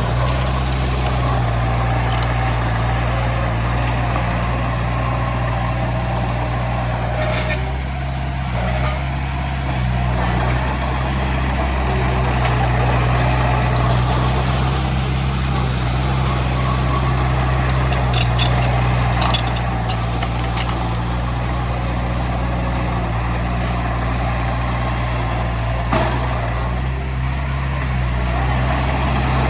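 Heavy diesel earthmoving machinery running steadily at a constant engine speed, with a few scattered metallic clicks and squeaks and one sharp knock near the end.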